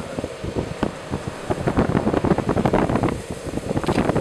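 Gusty thunderstorm wind buffeting the microphone in rapid, irregular thumps that grow louder about a second and a half in, over a faint steady hum.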